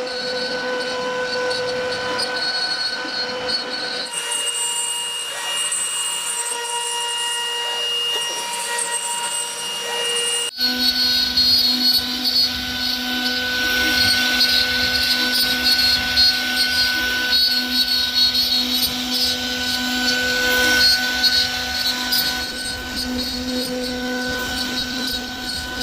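CNC router carving wood: a steady whine from the spindle over the rasp of the bit cutting. The sound changes abruptly about 4 and 10.5 seconds in.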